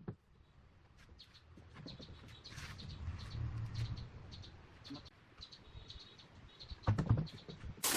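Small birds chirping repeatedly in short high notes over a low background rumble, with a couple of heavier knocks near the end.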